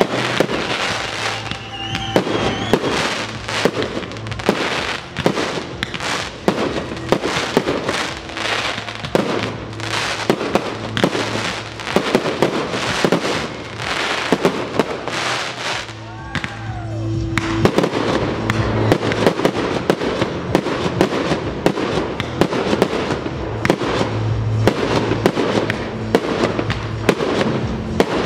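Aerial fireworks display: a rapid run of shell bursts and crackling stars going off one after another, with music playing underneath. The bursts thin out briefly about sixteen seconds in, then come back denser.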